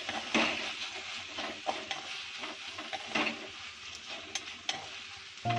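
Chopped tomatoes, onions and ginger-garlic paste sizzling in hot oil in a non-stick kadai as they are sautéed, while a wooden spatula stirs them, scraping against the pan several times.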